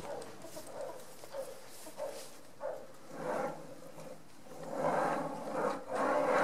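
Steel roller bearings of a homemade linear-bearing carriage rolling along an angle-iron rail as it is pushed back and forth by hand. It rumbles in a series of swells that grow longer and louder in the second half.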